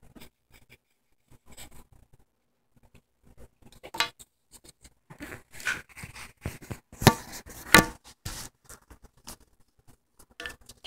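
Faint pencil strokes on paper, then from about four seconds in a busy run of knocks, rubbing and clicks from the phone being handled. The loudest are two sharp knocks about a second apart.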